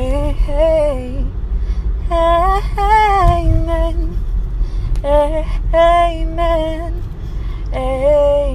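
A woman singing a slow melody unaccompanied, in long drawn-out phrases with a wavering pitch, broken by short pauses, over a steady low rumble.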